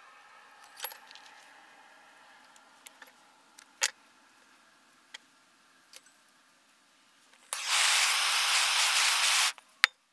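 A few light clicks and taps of small hard parts, then a loud, steady hiss lasting about two seconds that cuts off sharply, followed by one more sharp click.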